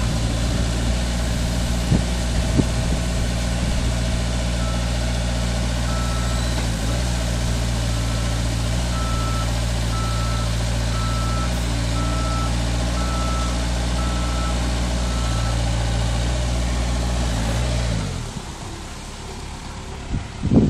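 Truck-mounted forklift's engine running steadily, shifting pitch a couple of times, with a reversing alarm beeping about once a second through the middle stretch. A couple of seconds before the end the engine sound drops away sharply.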